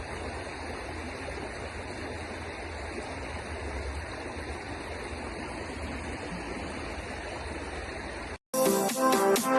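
River water flowing steadily. Near the end it cuts off abruptly, and after a brief gap loud electronic dance music begins.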